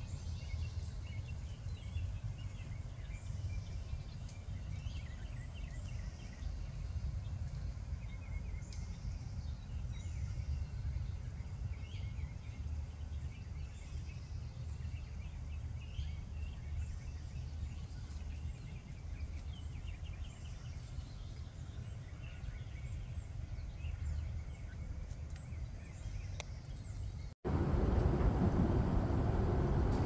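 Faint, scattered bird chirps over a steady low outdoor rumble. About two and a half seconds before the end the sound cuts abruptly to a much louder rushing noise.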